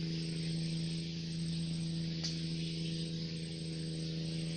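A steady low hum with a faint hiss, unchanging throughout, and one soft click about two seconds in.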